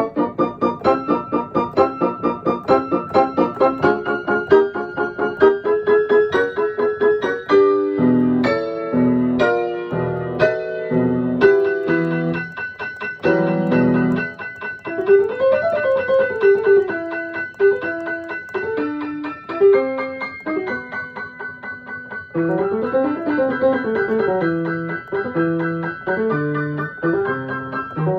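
Solo piano playing a light children's piece: quick, evenly repeated notes at about four a second at first, then fuller chords with a deeper bass from about eight seconds in, and later rising-and-falling runs.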